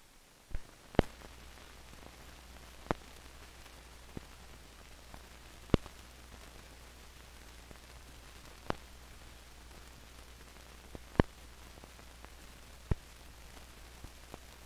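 Surface noise of an old film soundtrack: a steady low hum and hiss, broken by sharp clicks and pops at irregular intervals, a loud one every two or three seconds.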